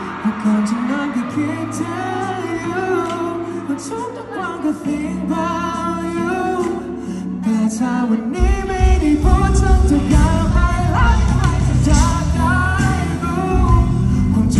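Live pop song: a male singer sings into a microphone over a band. For the first half the voice rides over sparse held bass notes, then about eight seconds in the full band comes in and the music gets louder.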